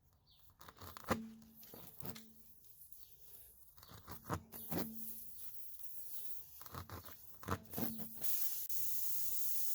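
Steel tire reamer worked in and out of a puncture hole in a tire tread, rasping with a string of sharp clicks and knocks. A steady hiss sets in about eight seconds in.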